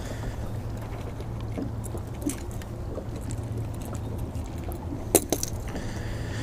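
Handling noise of a smallmouth bass being unhooked: faint ticks and clicks of hook, line and rod, with a sharper double click about five seconds in, over a steady low hum.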